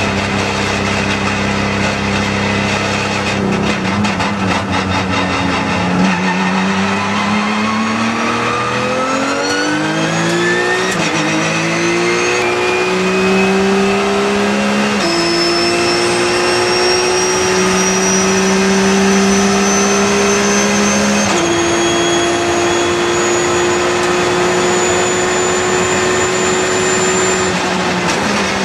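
Race car engine heard from inside the cabin, accelerating hard on track: its pitch climbs steadily, drops back at several upshifts, then falls away near the end as the throttle is lifted.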